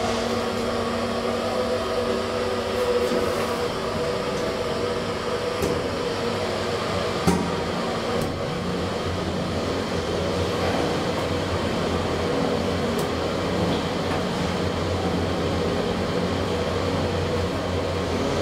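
2012 SMW traction elevator heard from inside the car during a ride: a steady hum from the car's fan and drive, with a sharp click about seven seconds in.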